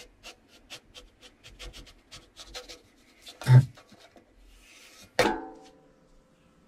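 Spatula scraping along a griddle as it is worked under a pancake, in a run of short faint scrapes and clicks. A thump comes about 3.5 s in, and a louder slap about 5 s in as the pancake is flipped back onto the griddle, ringing briefly.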